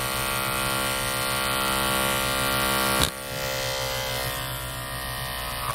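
Electric hair clippers buzzing steadily as they cut short hair against the grain. About three seconds in there is a click and the buzz carries on quieter.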